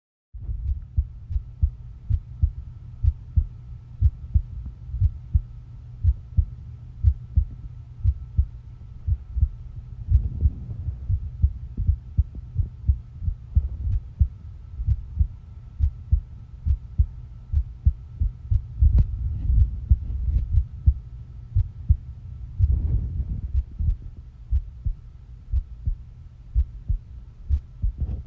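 A person's heartbeat: regular low thumps, about one beat a second, with a faint steady high hum behind them.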